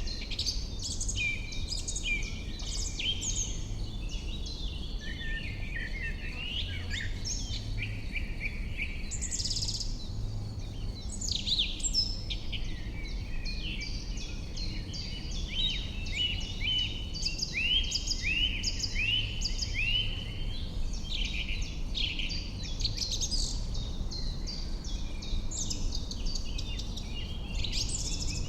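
Several songbirds singing at once in a dense, continuous chorus of chirps and short repeated phrases, over a steady low rumble.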